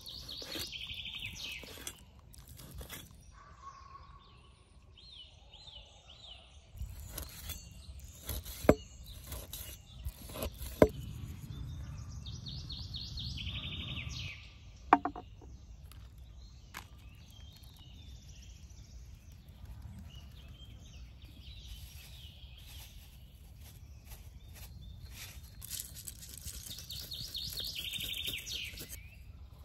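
Songbirds singing short trilled phrases several times over. A few sharp knocks and clinks, about nine, eleven and fifteen seconds in, are the loudest sounds, and a low rumbling noise runs from about seven to fourteen seconds.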